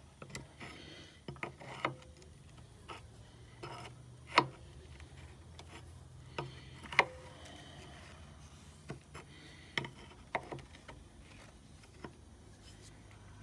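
Scattered metallic clicks and clinks of an open-end wrench being fitted onto and turned on the air-line elbow fitting of a truck suspension air bag, loosening it a little at a time. Two sharp clicks, about four and a half and seven seconds in, are the loudest.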